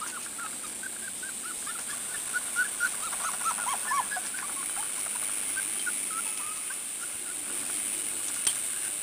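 Pembroke Welsh Corgi puppies whimpering and squeaking: many short, high cries that rise and fall, coming thickest a few seconds in and then scattered.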